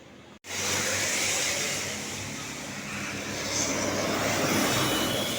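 After an abrupt cut about half a second in, loud steady road-vehicle noise: an engine running close with a rushing noise over it.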